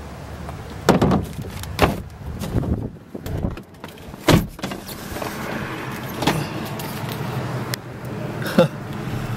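Knocks and thumps as the pickup is loaded and its door is shut, the loudest thump about four seconds in, then a steady low hum inside the cab.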